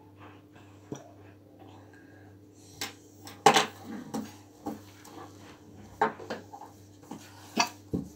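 Irregular sharp knocks and clicks of hands and pencils against a wooden tabletop, the loudest about three and a half seconds in, over a faint steady hum.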